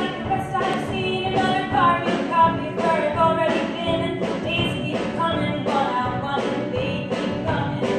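Young singers performing a song into microphones, backed by a live band whose drum kit keeps a steady beat of about two strokes a second.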